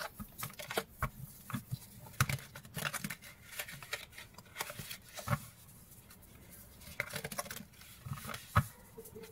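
Deck of oracle cards being shuffled by hand: faint, irregular soft clicks and short rustles of card sliding against card, with a brief pause a little past the middle.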